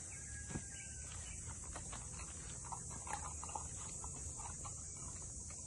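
A steady high-pitched insect drone, with scattered light knocks and a few short faint animal-like calls around the middle.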